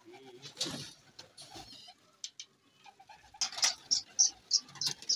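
A flock of fighter pigeons cooing low, with wings flapping. A quick run of sharp flaps comes in the second half.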